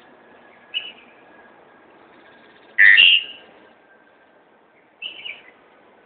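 A bird calls three times: a short note about a second in, a loud call in the middle, and a two-part call near the end. Steady background noise runs underneath.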